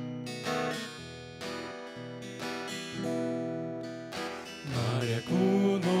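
Acoustic guitar playing a strummed intro. About five seconds in, a group of men's voices begins singing together over it, louder than the guitar.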